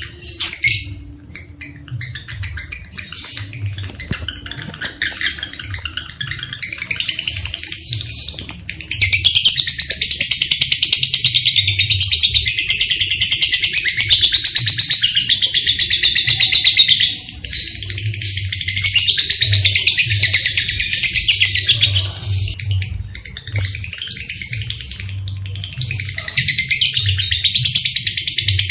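Lovebirds chattering in rapid, shrill runs: quieter for the first third, then a long loud unbroken stretch of chatter that breaks off a little past halfway and comes back in shorter bursts.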